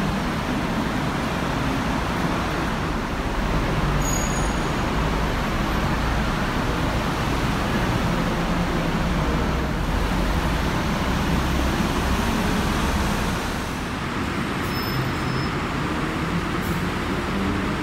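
Diesel engine of a Hino city bus idling at the stop, a steady low rumble mixed with the hiss of traffic.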